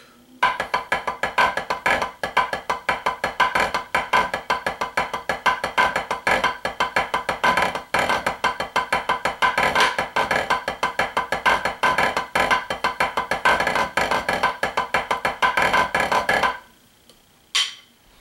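Wooden drumsticks on a drum practice pad playing the tripod diddle rudiment at 120 bpm: a fast, even stream of dry strokes that starts about half a second in and stops about 16.5 seconds in. One short sound follows near the end.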